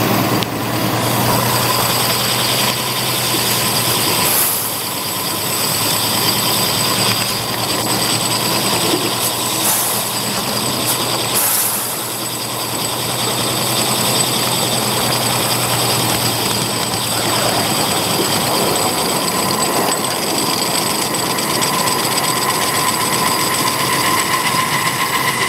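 Live-steam miniature Climax geared locomotive running, with a steady hiss of steam and mechanical running noise.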